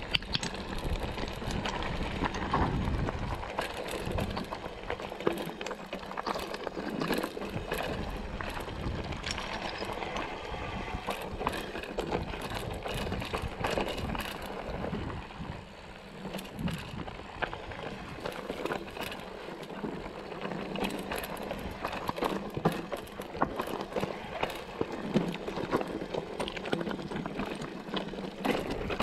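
Mountain bike rolling down a rocky dirt singletrack: tyres crunching over earth and loose stones, with frequent short rattles and knocks from the bike as it goes over bumps.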